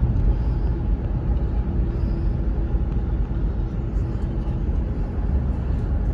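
Car driving along a city street, heard from inside the cabin: a steady low rumble of engine and tyre road noise, with a faint steady hum that fades out about halfway through.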